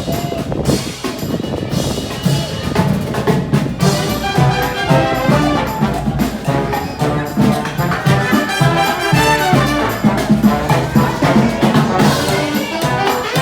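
Marching band playing, with brass and a steady beat of drums.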